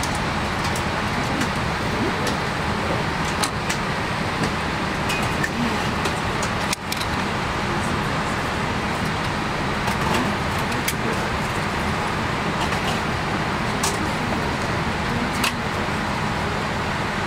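Steady whooshing cabin noise inside a Boeing 787-8 airliner waiting for take-off, with a few sharp clicks and taps as the plastic seat-back entertainment handset is handled and pulled from its cradle.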